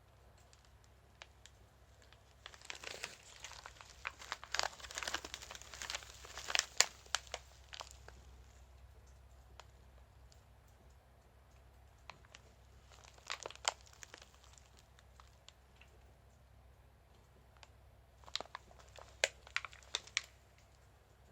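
Packaging being handled, crinkling in three spells: a long one of several seconds, then two short ones, with sharp clicks among them.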